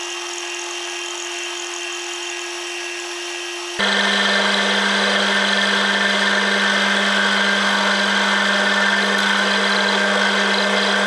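Metal lathe running and turning a brass rod: a steady motor hum under the hiss of the tool cutting the brass. About four seconds in the sound changes abruptly to a louder, lower hum with a stronger cutting hiss.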